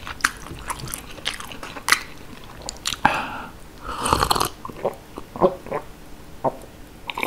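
Close-miked mouth sounds: wet chewing clicks, then water drunk from a glass in swallowing gulps about halfway through.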